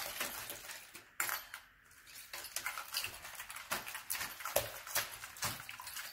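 Hands squishing and slapping slime in a disposable aluminium foil pan: irregular wet squelches with light clicks and crinkles from the foil.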